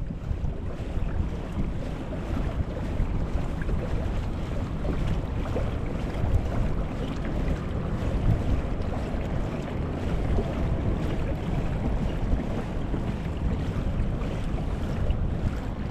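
Steady wind buffeting the microphone over water splashing and lapping against a kayak hull as the kayak moves along.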